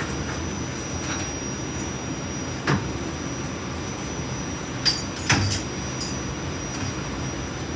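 Light rail car running on the track, heard from inside: a steady low rumble with a faint steady high whine, broken by a few sharp clunks about a third of the way in and just past halfway.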